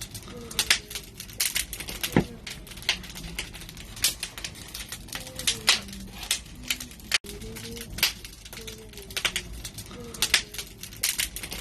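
Barbecue fire crackling, with sharp pops coming at irregular intervals over a low steady hiss.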